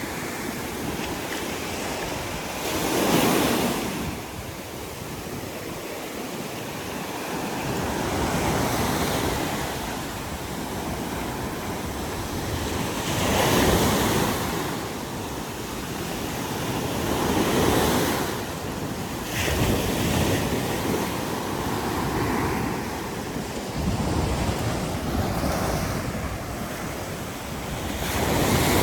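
Sea waves breaking and washing up on a beach, the surf swelling every few seconds, with wind buffeting the microphone.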